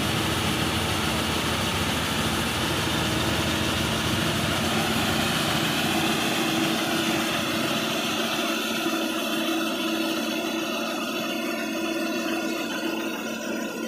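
Hira 985 combine harvester running steadily while it unloads grain through its unloading auger. The deep low end thins out about eight seconds in, while a steady mid-pitched hum carries on.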